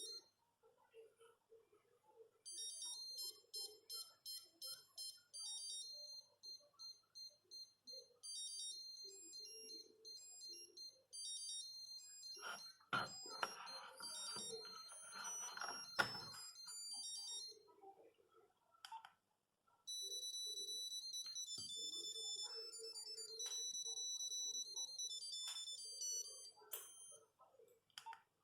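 Nokia 8210 monophonic ringtones playing through the phone's small speaker: short high-pitched beeping melodies, one tune after another with brief pauses between them. A burst of noise with two sharp clicks comes about halfway through.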